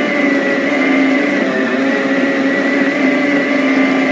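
Blender motor running steadily, puréeing chunks of butternut squash and persimmon into baby food.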